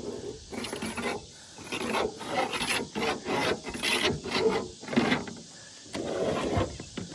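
Steel EMT conduit anchor pole rasping and scraping against its bracket in a run of short, uneven strokes as it is worked down through it.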